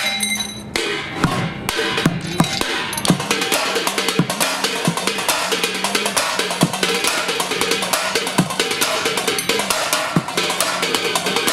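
Fast techno-style drumming with sticks on an improvised kit of upturned cooking pots, frying pans, metal buckets and scrap metal: rapid metallic strikes over a steady low beat about twice a second. The dense playing starts about a second in.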